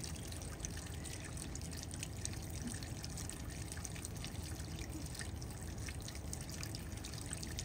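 Water trickling and dripping along a rain gutter, a steady run with many small irregular drip ticks.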